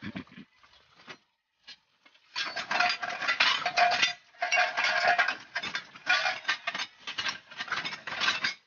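Scrap steel bars, rebar and angle iron, clanking and rattling against each other as they are pulled and shifted through a pile. A few light knocks at first, then from about two seconds in a steady clatter of metal striking metal, with ringing tones.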